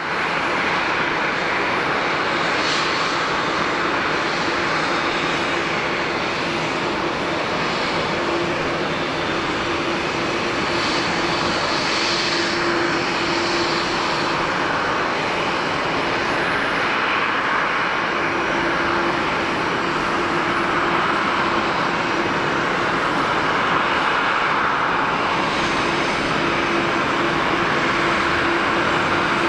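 Boeing 787's GE GEnx turbofans at idle thrust as the airliner taxis in after landing: a steady jet whine and rush, with a low steady tone that fades in and out several times.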